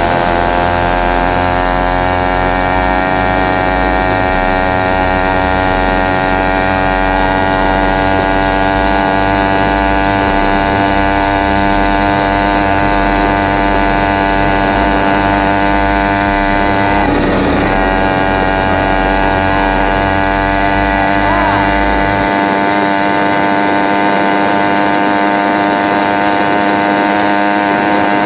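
BBR Tuning 66/80cc two-stroke motorized-bicycle engine running at a steady cruising speed under way, its note holding even after settling slightly lower in the first few seconds.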